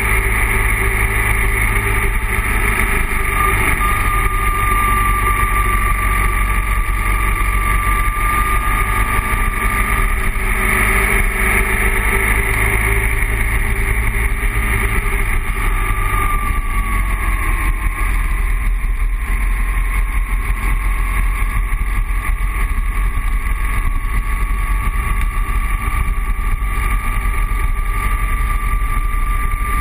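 BMW R1200 boxer-twin motorcycle riding at steady road speed: the engine runs under heavy wind rush on the onboard camera's microphone. A thin whine sits above the noise and dips slightly in pitch just past the middle.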